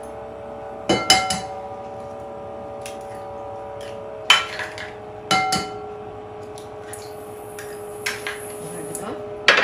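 Eggs tapped and cracked against the rim of a large glass mixing bowl: sharp taps about a second in, near four and five seconds, and again near the end. Each tap leaves the glass bowl ringing briefly.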